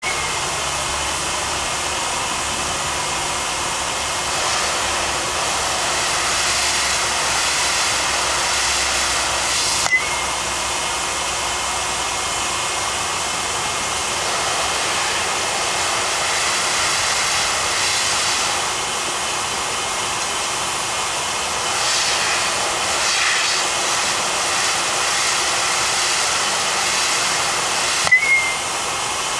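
Hit Zone air tee's blower running with a steady airy hiss as it floats a baseball. Twice, about ten seconds in and near the end, a bat strikes the ball with a sharp crack and a short ringing ping.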